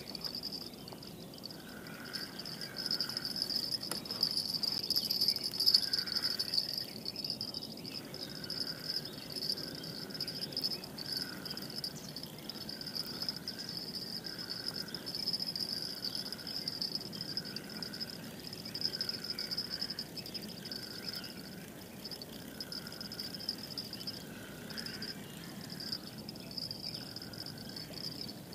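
Steady high-pitched insect trilling, with a short call near the middle of the range repeating regularly, about once every second and a bit, from about a third of the way in.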